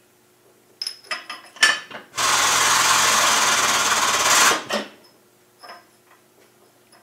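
A few metallic clinks as steel parts are set in a hydraulic shop press. Then the press's powered pump runs steadily for about two seconds, with a hum under a loud hiss, as the reverse idler of an R380 gearbox is pressed into place, and stops.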